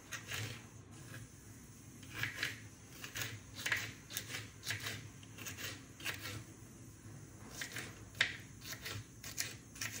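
Small kitchen knife chopping green bell pepper (capsicum) into small pieces on a plastic chopping board: quick, irregular taps of the blade through the pepper onto the board.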